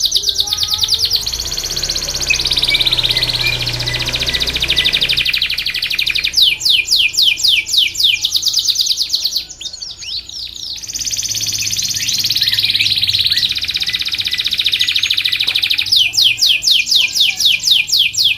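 Domestic canary singing a long, continuous song: fast runs of rapidly repeated high chirps alternating with rolled trills, broken by a brief pause a little past halfway.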